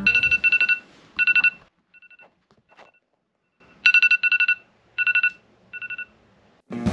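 Smartphone alert tone: rapid electronic beeps repeated in short bursts, dropping to a faint few in the middle before coming back loud about four seconds in.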